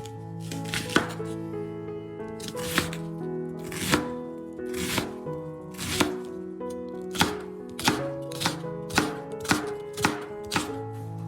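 Background music with held notes, over a series of sharp knocks about one a second that come faster, about two a second, near the end.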